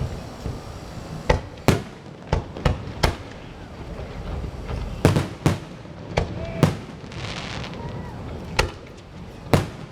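Fireworks going off: a run of sharp bangs at uneven intervals, about fifteen in ten seconds, coming in clusters, with a brief high fizz between bursts around two-thirds of the way through.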